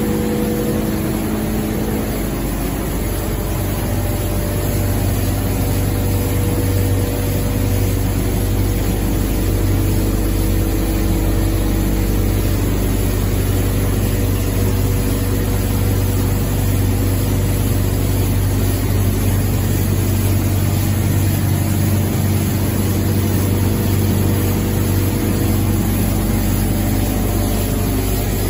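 QD-600SA dry-type copper wire granulator and separation line running: a loud, steady machine drone with a strong low hum under an even broad hiss.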